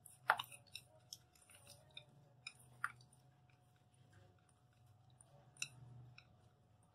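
Faint irregular clicks and soft squishy scrapes of a silicone spatula tossing diced potatoes with chopped coriander in a stainless steel bowl, over a faint steady hum.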